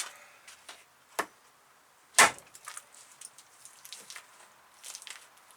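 Two sharp knocks about a second apart, the second louder, then light clicks and rustling as the cut copper cable is handled and set cut side up for twisting off its paper insulation.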